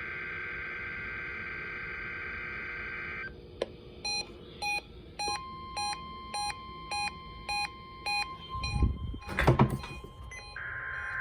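NOAA Weather Radio test signal: a shrill steady data-burst screech, then a weather radio receiver beeping about every 0.6 s while the steady 1050 Hz warning alarm tone comes in and holds. A few loud bumps sound near the end, and the shrill screech returns.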